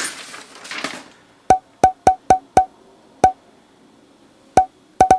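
A string of about nine short, hollow, wood-block-like pop sound effects, irregularly spaced and starting about a second and a half in, the kind laid under Facebook reaction emojis popping up on screen. A brief paper rustle fades out in the first second.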